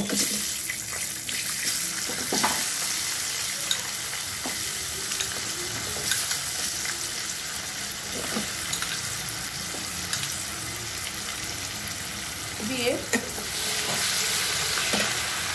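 Diced potatoes sizzling in hot oil in a kadai, with the spatula clicking and knocking against the pan as they are stirred. The sizzle grows a little louder near the end.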